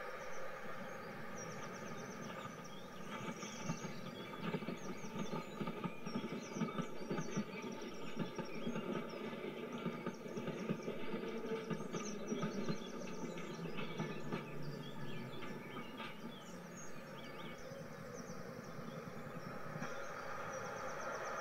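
Added real-railway sound: a train running on the line, its wheels clattering over rail joints over a steady rumble. The clatter is thickest from a few seconds in and eases off after about 16 seconds.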